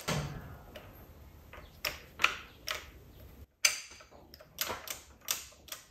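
Sharp, irregular metal clicks from the synchro locking collar and synchro keys on a Graziano L140 transmission gear stack as the collar is slid by hand into fourth gear to test the engagement.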